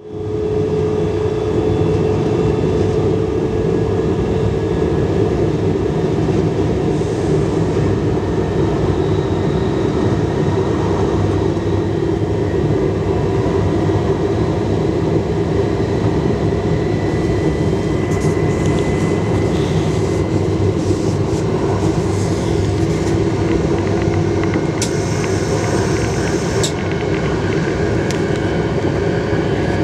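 Cab interior of an X31 Øresundståg electric multiple unit running at speed: the steady rumble of wheels on the rails with a steady tone over it that rises slightly at first. A brief higher hiss comes in about 25 seconds in and stops two seconds later.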